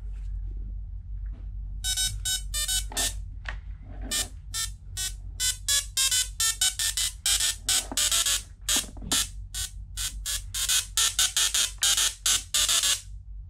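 Musical Tesla coil (plasma speaker) playing a square-wave song through its spark arc: a run of harsh, buzzy notes in rhythm that starts about two seconds in.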